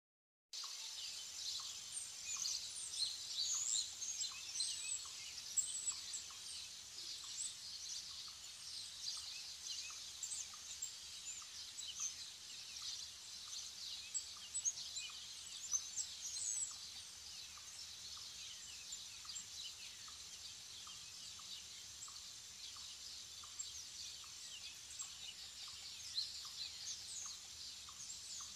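Woodland birdsong: many birds chirping and whistling together in a dense dawn-chorus ambience over a steady high hiss, with a faint note repeating about once a second. It starts abruptly about half a second in and is busiest in the first half.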